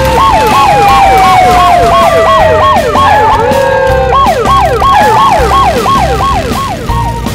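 Cartoon sound effect: a siren-like whistle that jumps up and slides down about three times a second, over a long, slowly falling tone and a steady low beat of background music.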